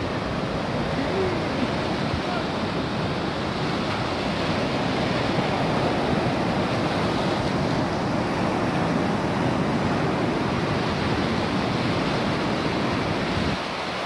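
Sea surf washing in over rocks and sand at the shoreline: a steady wash of breaking waves and foam.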